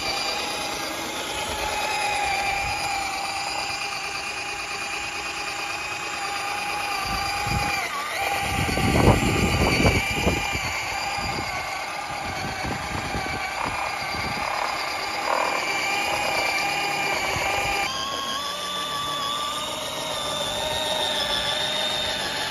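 Cordless power drill driving the go-kart's rear wheel, its motor whining steadily, with the kart's tyres rumbling over concrete. A louder rough rumble comes about 8 to 11 seconds in, and the pitch of the whine shifts about three-quarters of the way through.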